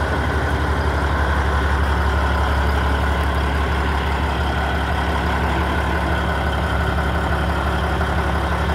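Caterpillar 3406E inline-six diesel of a 1998 Peterbilt 379EXHD idling steadily, a low, even pulsing with no change in speed.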